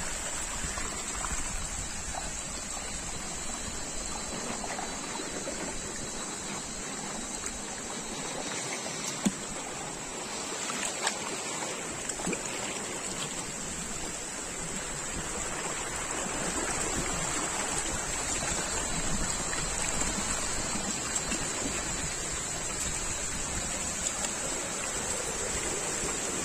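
Small rocky forest stream running and splashing over boulders in short cascades, a steady rushing of water. A steady high-pitched whine sits over it, and there are a couple of brief knocks near the middle.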